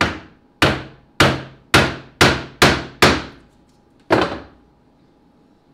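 Claw hammer striking a glued-up laminated wooden bow stem eight times to keep the laminations lined up. Seven sharp blows come about half a second apart, then one more after a pause of about a second.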